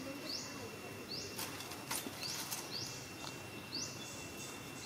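Outdoor wildlife ambience: short high chirps, each rising in pitch, repeat about twice a second over a steady high-pitched tone, with a couple of faint clicks just under two seconds in.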